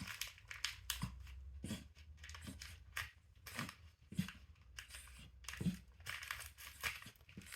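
Scissors snipping and cutting open a parcel's packaging, a run of irregular sharp snips mixed with crinkling and tearing of the wrapping.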